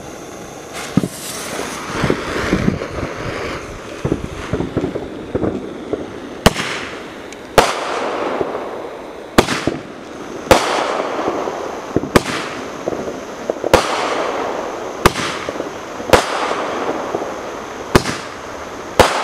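Coast Guard military Roman candle firing. Hissing and crackling for the first several seconds, then about ten sharp bangs spaced a second or two apart, each trailing off in a fading hiss.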